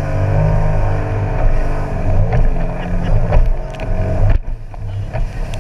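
An engine running at a steady pitch, its revs rising and falling briefly in the middle, with a short sudden dip about four and a half seconds in.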